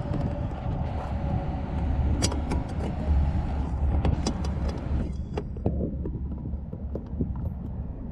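Light plastic clicks and scrapes of a halogen headlight bulb being turned and pressed against its socket at the back of the headlight housing while it is worked into position. Under them runs a low steady rumble, with a broader hiss that drops away about five seconds in.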